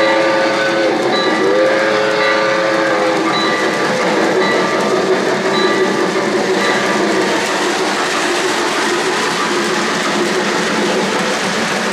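Model steam locomotive's sound system blowing its steam whistle twice, a short blast then a longer one in the first three seconds. Underneath is the steady rolling noise of O-gauge freight cars' wheels on three-rail track, which carries on after the whistle.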